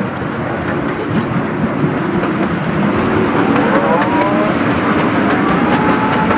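Ride-on miniature steam railway train running along its track: a steady rumble and clatter of the cars' wheels on the rails. A wavering squeal rises in over the second half.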